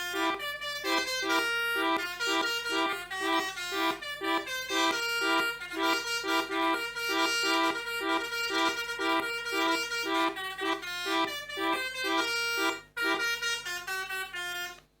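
Pianika (melodica) playing a lively telolet bus-horn style tune: a moving melody over a low note repeated in quick, even pulses, with a short break about two seconds before the end.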